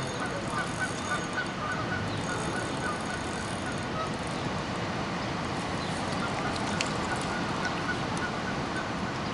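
Steady rush of water pouring over a dam spillway, with faint bird calls now and then.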